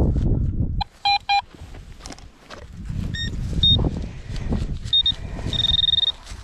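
Metal detector tones: two short low beeps about a second in, then several short high beeps, the last held for about half a second, over low rustling and handling noise.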